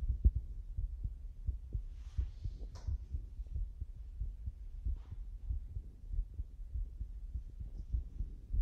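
Resting heartbeat heard through a stethoscope pressed to the chest: a steady run of low lub-dub heart sounds, with a few faint rustles of the chest piece against skin and clothing.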